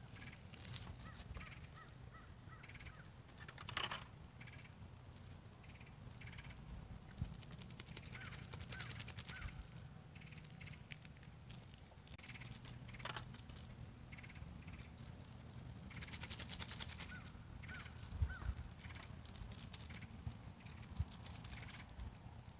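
Birds calling in a few short runs of about three notes each, over faint intermittent crackling and an occasional light clatter.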